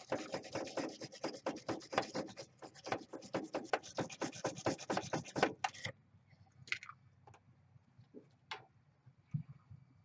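Rapid scratchy rasping strokes, several a second, from hand work on the wiring at the air-conditioner condenser's electrical terminals. They stop about six seconds in, and a few faint clicks follow.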